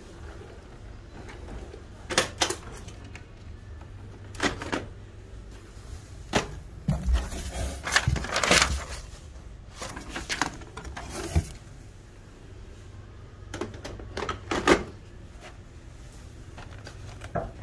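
Handling of a cardboard box, paper insert and foam packing while a printer image drum is unpacked: scattered rustles and knocks, with a longer stretch of crinkling about seven to nine seconds in.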